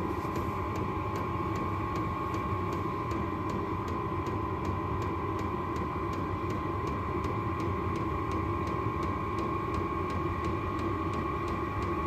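Silvel 8 kW diesel air heater starting up: its blower fan runs with a steady whine that creeps slightly higher in pitch, while the fuel pump ticks about three times a second.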